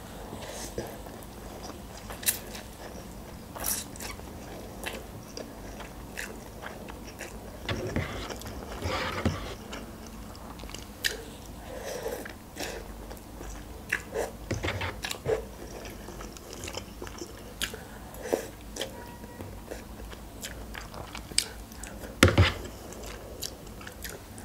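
Close-miked mouth sounds of a person eating instant noodles: soft chewing and slurping with scattered wet mouth clicks, and one sharper click near the end.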